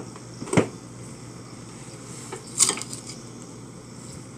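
A refrigerator is lifted and handled while it is shimmed level. There is a sharp knock about half a second in and a short rattling scrape about two and a half seconds in, over a steady low hum.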